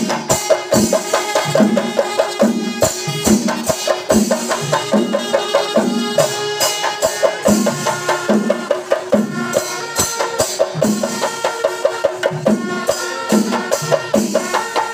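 Kerala chenda melam: a large ensemble of chenda drums beaten with sticks in a steady, dense rhythm, with kuzhal double-reed pipes sounding held notes over the drumming.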